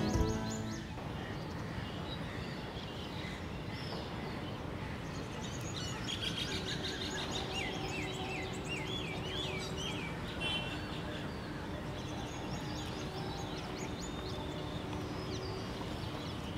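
Open-air ambience: a steady background hiss with small birds chirping, in a quick run of repeated chirps from about six to ten seconds in. Background music cuts off within the first second.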